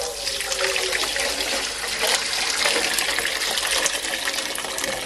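Water poured in a steady stream from a kettle into a stainless-steel bowl, splashing as the bowl fills.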